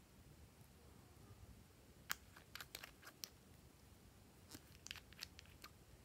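Nail polish bottles and caps being handled: two clusters of light, sharp clicks, about two seconds in and again near five seconds.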